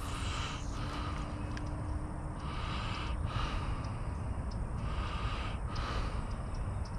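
A person breathing heavily close to the microphone, soft puffs of breath every couple of seconds, over a steady low rumble.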